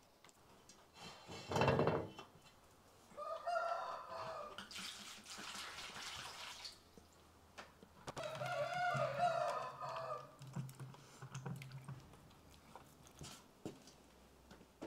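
A rooster crowing twice, each crow lasting about one and a half to two seconds, with a single short loud knock shortly before the first crow.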